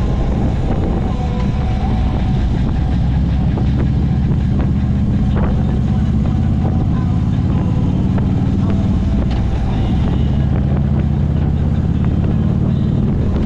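Harley-Davidson V-twin motorcycle engine running steadily at cruising speed, with wind noise on the microphone.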